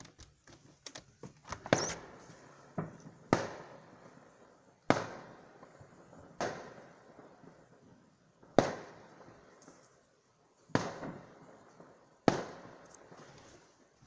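Fireworks going off: about seven sharp bangs, one every one and a half to two seconds, each trailing off in an echo, with smaller pops between them.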